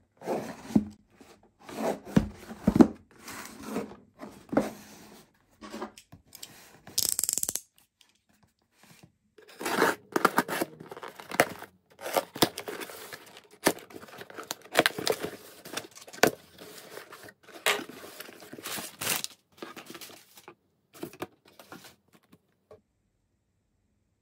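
A cardboard shipping box slit with a utility knife and torn open by hand: irregular bursts of packing tape and cardboard tearing, with scraping, rustling and handling knocks.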